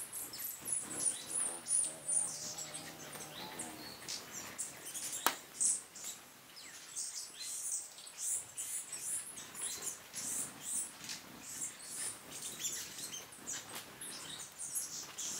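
Hummingbirds at a feeder: a stream of short, very high, thin squeaky chirps, with a low wavering hum of hovering wings in the first few seconds. One sharp click about five seconds in.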